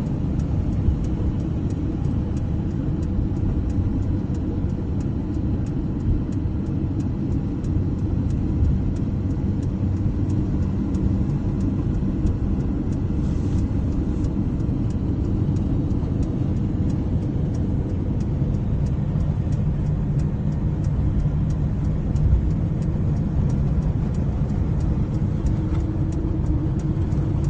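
Car cabin noise while driving: a steady low rumble of engine and tyres on the road. Over it, the hazard-light flasher ticks faintly and evenly, about three ticks a second.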